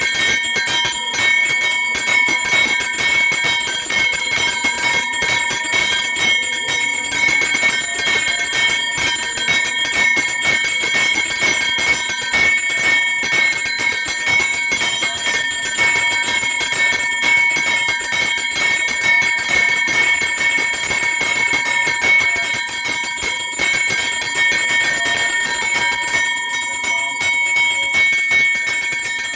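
A temple hand bell rung rapidly and without a break, a steady ringing on the same few pitches throughout, as in worship before the deity statues.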